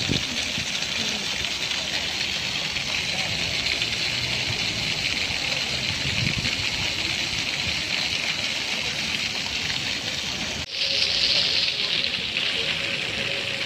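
Ground-level jet fountains spraying up and splashing down onto wet paving: a steady hiss of falling water. It cuts out for an instant about ten seconds in and comes back a little louder.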